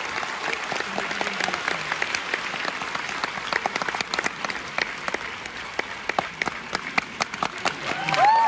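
Theatre audience applauding, a dense patter of many hands clapping, with a rising whoop from one voice near the end.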